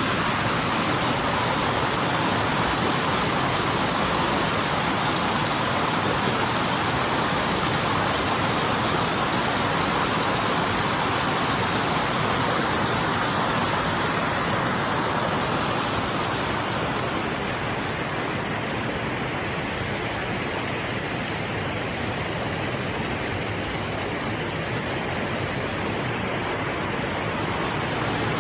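Steady rush of flowing water, a continuous even hiss with no distinct splashes or drops, a little softer for a while in the second half.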